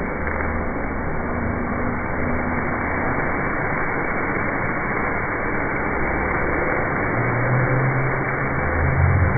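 Hot oil sizzling and flames rushing as a ladle of burning oil is poured over green onions on bowls of ramen, a loud, steady hiss. A low hum joins in near the end.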